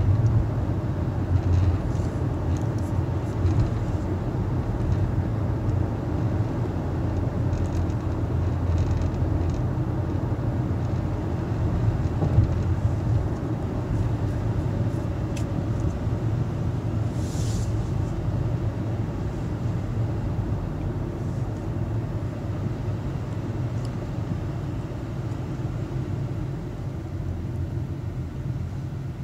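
Car cabin road noise while driving: a steady low rumble of tyres and engine, with a short hiss a little past halfway.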